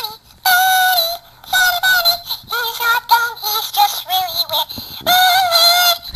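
A high-pitched voice singing a tune in short phrases, with long held notes about half a second in and again near the end.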